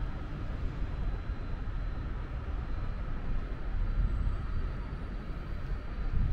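Outdoor city ambience: a continuous low rumble with a faint steady hum above it.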